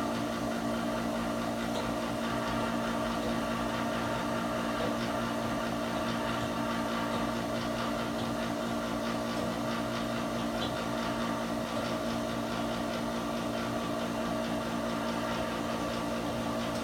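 Vintage Delta surface grinder running, its motor and grinding wheel spinning with a steady hum at a constant pitch.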